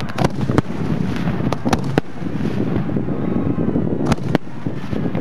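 Hand-fired fireworks mortars launching 3- to 6-inch aerial shells: about six sharp, muffled booms at uneven intervals, two pairs close together, over steady wind rumble on the microphone.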